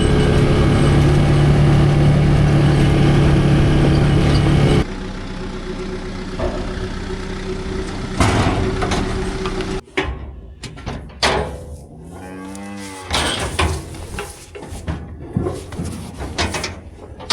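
Cattle mooing while being penned for loading into a livestock trailer, with one long moo about two-thirds of the way in. A steady engine hum runs loud for the first five seconds, then quieter, and sharp clanks of metal gates or trailer fill the last few seconds.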